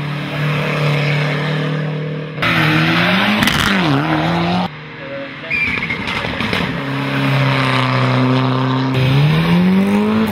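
Rally car engines racing uphill at high revs, pitch held steady and then dipping and climbing through gear changes. The sound cuts abruptly twice from one car to another. Near the end a Peugeot 106 accelerates hard, its engine note rising steeply.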